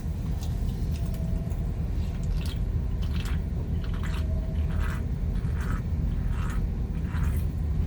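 A person chewing food close to the microphone, one or two wet chews a second, over the steady low rumble of a car cabin.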